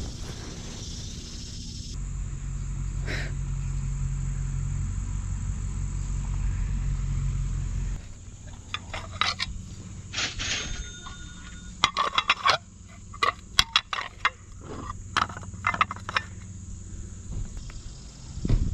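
Ceramic plates clinking and clattering against each other as they are picked up and handled, a few knocks leaving a brief ring. Before this comes a steady low rumble lasting several seconds.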